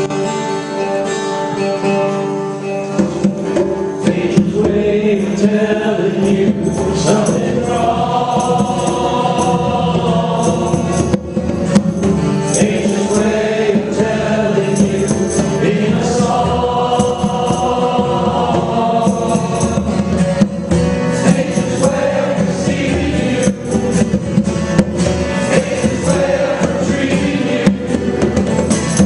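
Live band performing a song: an instrumental opening, with congas joining about three seconds in and singing entering a few seconds later over a steady drum pattern.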